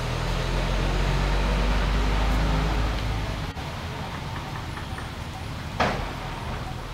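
Low, steady engine rumble of a motor vehicle, cutting off abruptly about halfway through. A steady hiss follows, with one short, sharp sound near the end.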